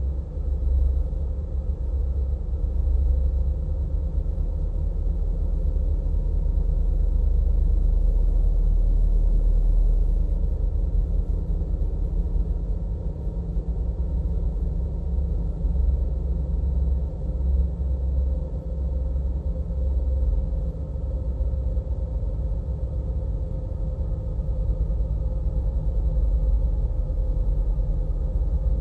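Ambient electronic drone: a steady deep rumble with faint held tones above it, unchanging throughout.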